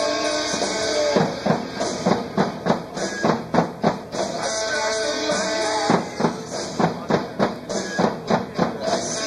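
Rock song, the band's demo backing track of electric guitar and drums, with a drum kit played live over it on heads muffled by silencing pads. The drum beat comes at about two to three hits a second, broken twice by stretches of held guitar chords.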